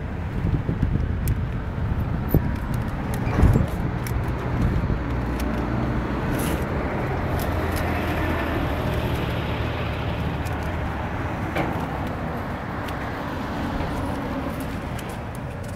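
Road vehicle noise: a steady low engine hum and tyre rumble that swells a little towards the middle and then eases, with a few light clicks.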